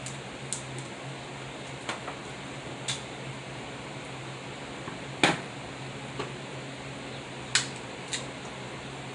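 Snow crab legs being eaten by hand: about six sharp, short clicks and cracks of shell and mouth sounds, the loudest a little past five seconds in, over a steady background hum.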